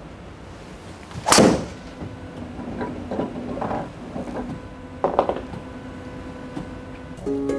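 A golf club striking a ball on a practice swing: one sharp crack, followed by a few smaller knocks and clicks.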